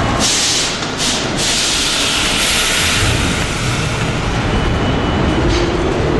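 New York City subway 7 train at the station: two short bursts of hissing air in the first second and a half, then a longer hiss, over the steady rumble of the train.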